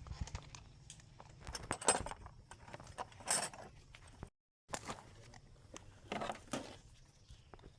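Irregular metallic clinks and knocks of tools and metal parts being handled, with a few louder knocks about two and three seconds in and again near the end.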